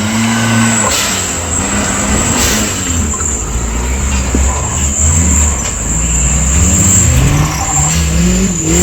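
Off-road 4x4 competition vehicle's engine revving up and down again and again under load, a deep engine note that rises and falls every second or so.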